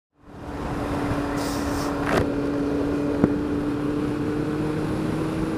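Triumph Speed Four's 600 cc inline-four engine running steadily at road speed, with wind and road noise over the helmet camera, fading in just after the start. The engine pulls smoothly with no stutter or cough, its trouble cured by tightening a loose positive battery terminal.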